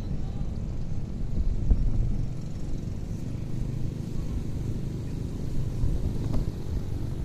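Toyota Wigo small hatchback driving along the road: a steady low rumble of engine and tyre noise, with a brief low thump just under two seconds in.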